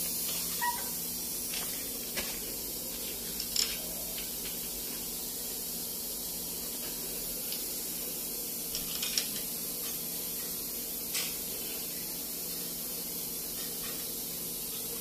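Steady high hiss, with a few faint, scattered clicks of metal parts as a stabilizer bar bushing and bracket are fitted by hand.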